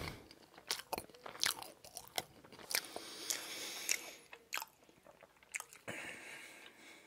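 Chewing and wet mouth sounds close to the microphone: a string of sharp lip smacks and tongue clicks with softer breathy noise between them, thinning out near the end.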